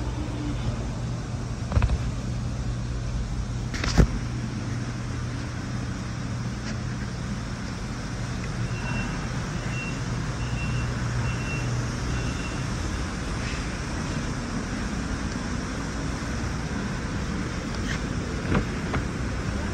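Steady low mechanical hum of background vehicle or machinery noise. There is a sharp knock about four seconds in, and a string of five short, high beeps evenly spaced about nine seconds in.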